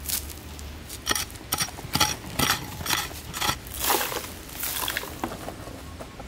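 Loose dry soil and small stones being scraped up and scooped by hand, a quick run of gritty scrapes about every half second, then longer pours of falling dirt around four and five seconds in.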